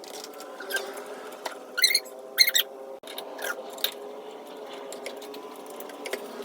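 Hand tools on the brake assembly: a few short bursts of rapid metallic clicking, the loudest about two seconds in, over a steady low hum.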